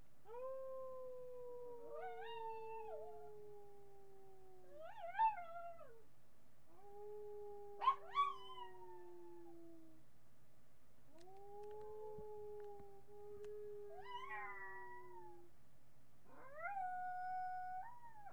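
Miniature pinscher howling: three long drawn-out howls, each a few seconds long and slowly falling in pitch, with shorter, higher wavering notes breaking in over them. The loudest notes come just after the middle.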